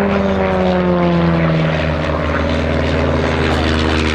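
De Havilland Chipmunk's single piston engine and propeller droning as it flies past, the pitch falling over the first couple of seconds and then holding steady.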